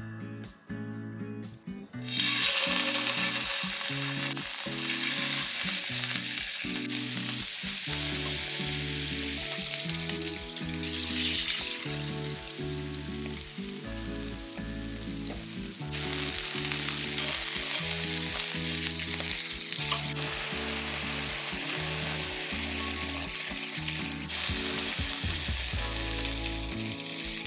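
Sea scallops searing in hot rice bran oil in a frying pan: a steady, loud sizzle that starts about two seconds in.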